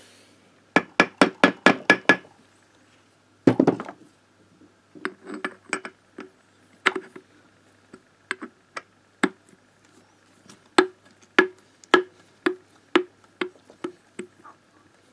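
Metal engine parts being tapped and knocked together during engine reassembly: a quick run of about eight sharp taps, a heavier knock, then irregular taps about one or two a second, each ringing briefly.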